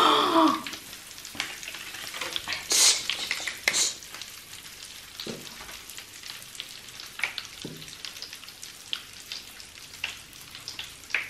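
Popping powder sprinkled into a bathtub of slime water, crackling and fizzing with many small pops, much like frying. A brief voice exclamation at the very start, and two louder hissing bursts about three and four seconds in.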